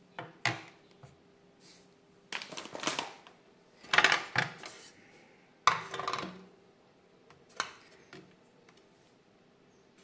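Dishes and utensils being handled in a kitchen: about five separate bursts of clattering knocks and scrapes, the loudest about four seconds in, over a faint steady hum.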